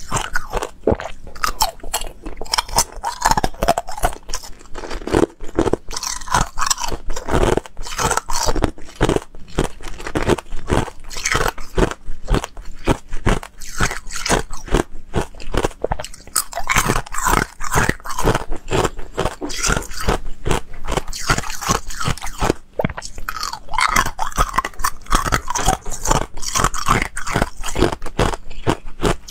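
Ice cubes being bitten and chewed close to a lapel microphone: a fast, continuous run of sharp crunching and cracking, several crunches a second.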